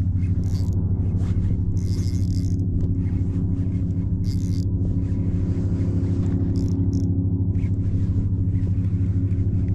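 Wind buffeting the microphone in a steady low rumble, with a few short splashes of water.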